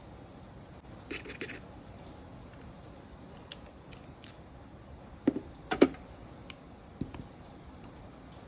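Small clicks and taps of nail-art tools, the stamper and polish bottles being handled on a tabletop: a quick cluster about a second in and two louder knocks about halfway through. Under them runs a steady hiss of rain.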